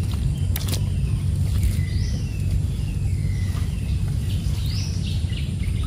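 A bird calling with several short whistled notes that fall in pitch, about one a second, over a steady low rumble from the outdoor surroundings. There are a couple of faint clicks under a second in.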